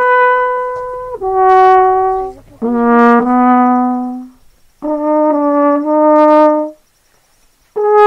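Background music: a brass instrument playing a slow melody of long held notes, stepping between pitches, with two short pauses.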